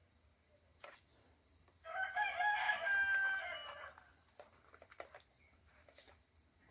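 A rooster crowing once, a held call of about two seconds starting about two seconds in and falling away at the end. Faint clicks of washi tape rolls being sorted by hand.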